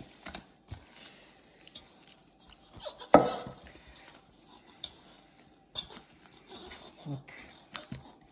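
Sticky bread dough being pulled off the sides of a stainless steel bowl and beaten by hand: scattered soft taps and clicks against the metal. One sharp knock on the bowl about three seconds in rings on briefly.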